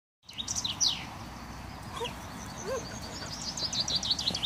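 Common chaffinch singing. The end of one song comes as a falling flourish just under a second in. A new song starts about three and a half seconds in as a rapid series of high, falling notes.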